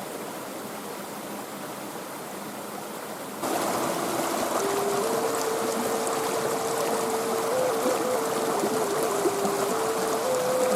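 A steady rushing of running water, like a stream. About three and a half seconds in it gets suddenly louder and music starts over it: a slow melody of long held notes.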